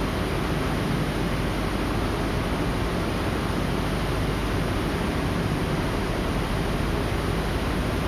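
Steady rushing background noise with a low, even hum underneath and no change or sudden sounds.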